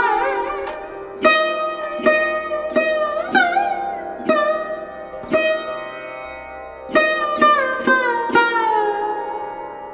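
Background music: a plucked string instrument playing a slow melody, each note ringing out, several of them bent in pitch after the pluck.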